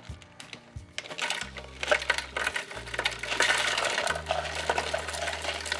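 Ice cubes clattering as they are dropped into the slush machine's canister: a few scattered knocks at first, then a dense run of clinks and rattles from about a second and a half in.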